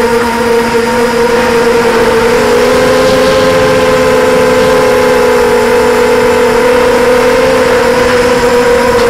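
FPV quadcopter's electric motors and propellers whining loud and steady, heard close up from the onboard camera; the pitch rises a little about two and a half seconds in and eases back down near the end as the throttle changes.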